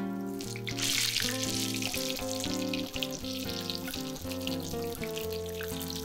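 Fukinotou (butterbur sprouts) in tempura batter deep-frying in hot oil: a dense, crackling sizzle that swells sharply about a second in, heard with background music.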